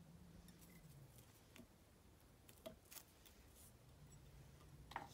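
Faint clicks and snips of steel fly-tying scissors working on a deer-hair fly, with a sharper, louder click near the end.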